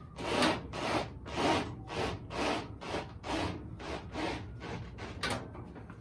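Hand file rasping back and forth on the sheet-metal headlight bucket, about two even strokes a second, opening up clearance for the turn-signal light.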